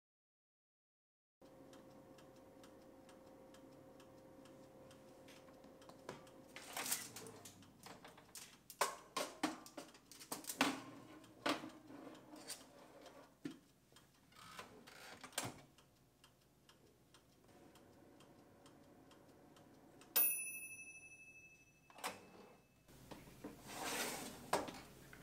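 Cuisinart air fryer toaster oven running with a steady hum, then clicks and clatter as its door is opened and the metal baking tray and its foil cover are handled. About 20 s in, a single bright bell-like ding rings out for a couple of seconds.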